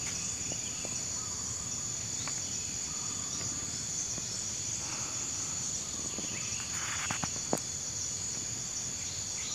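Insects droning steadily at a high pitch in the surrounding brush. A brief rustle and a couple of sharp clicks come about seven seconds in.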